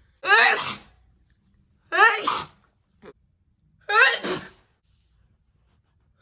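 A woman sneezing three times, about two seconds apart, each a short, loud, voiced sneeze.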